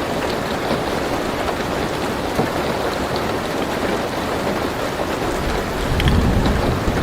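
Steady rain falling on a car roof, heard from inside the car, with scattered drops ticking. A low rumble of thunder swells about six seconds in.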